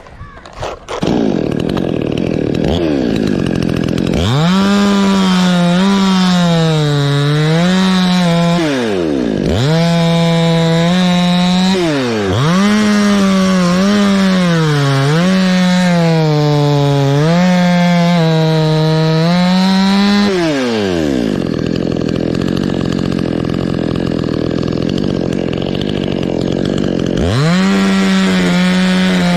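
Chainsaw running at full throttle as it cuts into a coconut palm trunk, its pitch sagging and recovering under load. It drops back to idle three times, the last for several seconds, then revs up again near the end.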